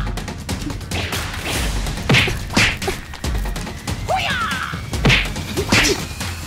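Punch and hit sound effects for a hand-to-hand fight: four sharp whacks, a pair about two seconds in and another pair about five seconds in, over background music with a low pulsing beat.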